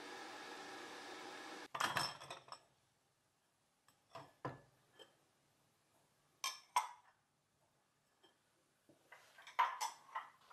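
Cuisinart electric kettle heating water with a steady hiss that cuts off suddenly about two seconds in. Then dishes and cutlery clink against a wire dish rack in scattered knocks, with the busiest run of clinks near the end.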